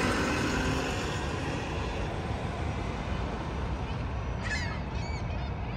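CTA city bus pulling away, its engine and road noise fading steadily. From about four seconds in, a bird calls several times in short arched calls.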